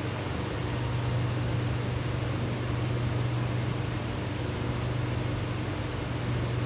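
Steady hum and hiss inside a stationary SMRT C751B train carriage, from its air-conditioning and onboard equipment running while the doors stand open.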